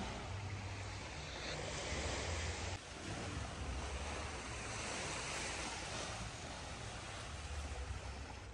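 Steady rush of surf on a shore, with wind buffeting the microphone as a low rumble.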